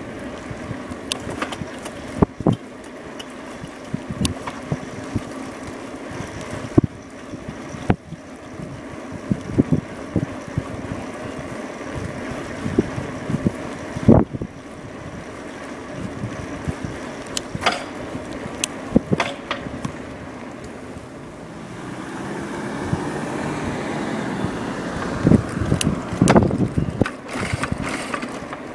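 An A2B Metro electric bike being ridden: a steady rushing ride noise with frequent sharp clicks and knocks, growing louder for a few seconds near the end.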